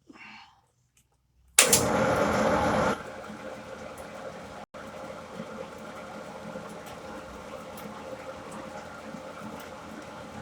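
A metalworking machine running steadily while drilling out a steel airgun chamber workpiece, with a louder, harsher noise for about a second and a half near the start.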